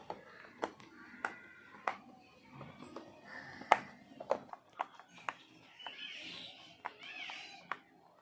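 Silicone pop-it fidget toy having its bubbles pressed: about nine sharp pops, irregularly spaced. A high-pitched voice sounds in the second half.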